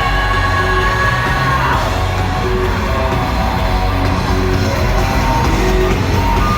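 Loud live rock band music at a concert, recorded from the audience, with a heavy steady bass and long held tones, and a sliding note about two seconds in.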